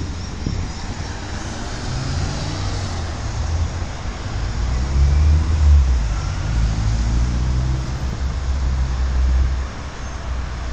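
Road traffic on a busy multi-lane road, heard from above: a steady mix of car engines and tyre noise with a low rumble. It swells loudest about five to six seconds in as vehicles pass close below.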